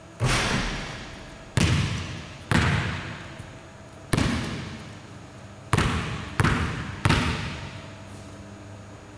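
Basketball coming down after a free throw and then being dribbled on a hardwood gym floor: seven sharp thumps, the last three in quicker succession, each ringing out in the hall's long echo.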